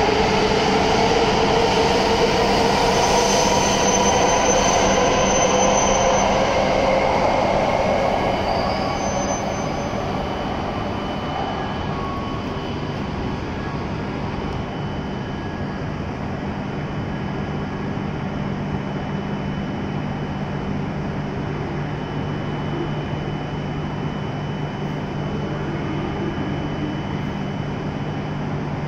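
W7-series Shinkansen pulling out with its traction motors whining, the whine rising slowly in pitch as it gathers speed, then fading after about eight seconds. A steady low hum follows from a second Shinkansen standing at the platform, with a faint high steady tone.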